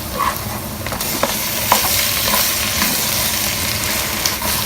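Shell-on prawns sizzling in hot oil with garlic and onion in a cooking pot, the sizzle getting louder about a second in, with a few light clicks of a utensil stirring.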